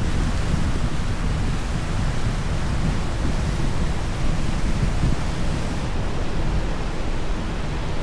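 Ocean surf washing steadily on a beach, with wind rumbling on the microphone.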